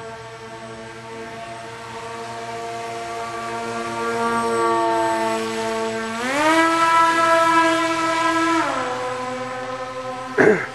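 Electric motor and propeller of a small foam RC F-117 model in flight, a steady whine that speeds up and rises in pitch about six seconds in, holds for about two seconds, then drops back. A short loud thump near the end.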